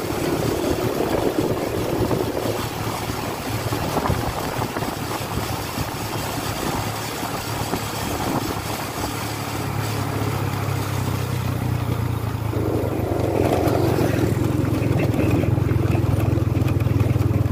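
Engine of the vehicle carrying the camera running steadily on the move, with wind and road noise. The low engine hum grows stronger and louder over the second half.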